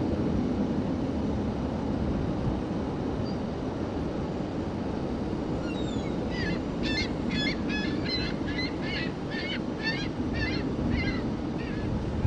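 Steady low rumble of an Airbus A330 jet airliner on approach, mixed with wind noise on the microphone. About halfway through, a bird gives a rapid series of about ten short chirping calls, a little over two a second.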